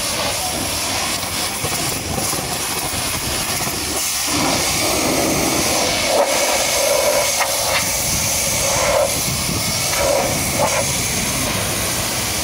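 High-pressure water jet spraying a muddy truck: a steady hissing spray whose tone shifts and swells in patches from about four seconds in as the jet moves over different surfaces.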